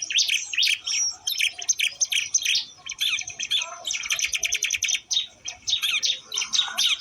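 Ciblek Lombok birds (prinias) chirping and trilling: a dense run of rapid, high chirps with brief pauses.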